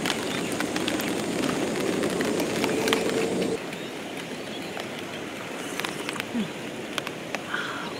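Outdoor ambience of steady rain, with many scattered drops ticking. A louder low rumble fills the first half and cuts off abruptly about three and a half seconds in.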